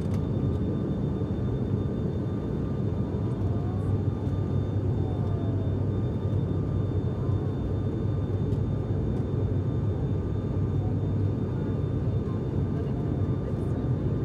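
Cabin of an ATR 72-600 turboprop in flight: a steady, even drone from the turboprop engines and propellers at climb power after takeoff, heard from inside the passenger cabin beside the engine.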